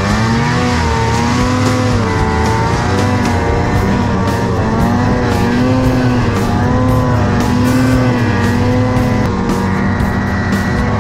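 Ski-Doo Summit snowmobile's two-stroke twin engine running hard, its pitch rising and falling with the throttle as the sled rides through deep powder.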